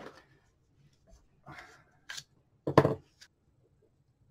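Scissors being handled and snipping at a piece of foam rubber: a few short scrapes and clicks, the loudest about three seconds in.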